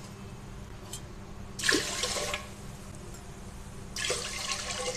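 Water poured from a glass into a pressure cooker over rice and moong dal, in two separate pours: one about a second and a half in, the other near the end.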